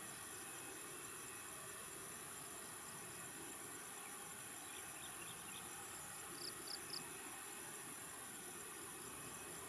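Insects, crickets, chirring in a steady high-pitched drone. Three short high chirps come about six and a half seconds in.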